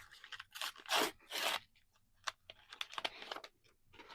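Crinkly rustling of trading cards and pack wrapper being handled, with two louder rustles about a second in, then small clicks and a softer rustle near the end.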